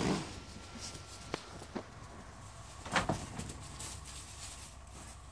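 Quiet background with a few scattered sharp knocks, the loudest about three seconds in.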